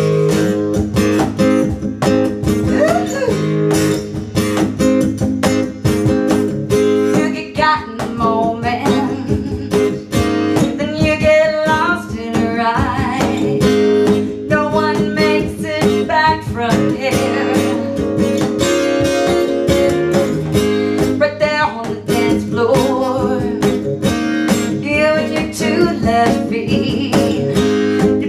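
A small acoustic band playing a song: a strummed acoustic guitar and a cajón box drum keep the beat, and a woman sings lead, her voice most prominent from about eight seconds in.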